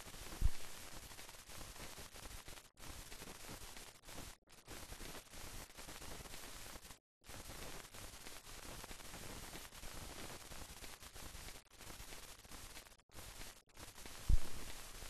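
Steady static hiss of a film soundtrack with no recorded sound, broken by several brief dropouts to silence and two short low thumps, about half a second in and near the end.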